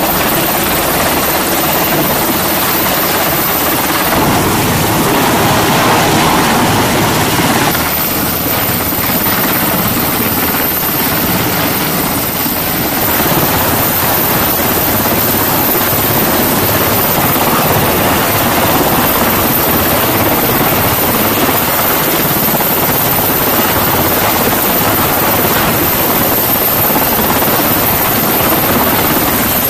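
Sikorsky MH-60 Seahawk helicopter close by, hovering and setting down on a ship's flight deck: loud, steady rotor and turbine noise.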